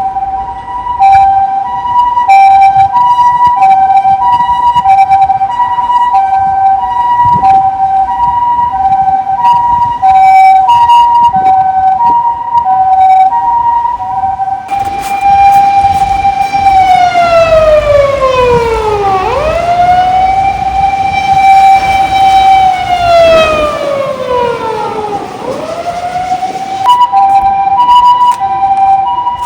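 Japanese ambulance electronic siren, passing close and loud. It gives the two-note hi-lo "pee-po" call, about one cycle a second. About halfway through it switches to a slow wail that falls and rises twice, the mode used when crossing an intersection, then goes back to the hi-lo call near the end.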